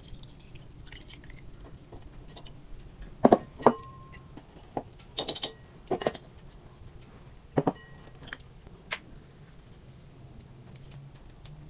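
Kitchen utensils and dishes being handled: about ten scattered clinks and knocks, one of them ringing briefly, over a faint low hum.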